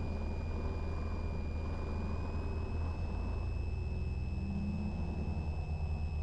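Light single-engine piston airplane's engine droning in the cockpit during the final approach, with a steady high whine above it that rises slightly about two seconds in. Near the end the drone turns into a slower, pulsing beat.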